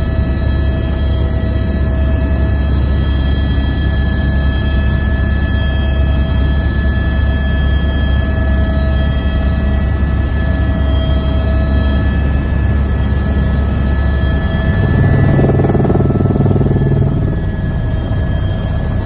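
Helicopter cabin noise in low, fast flight: a steady deep rotor hum with a high turbine whine over it, swelling louder for a couple of seconds about three-quarters of the way through.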